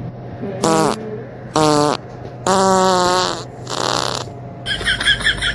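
Three loud, buzzy fart noises in a row, the first falling in pitch and the third the longest, then a shorter hissing one. Near the end comes a quick run of short pulses.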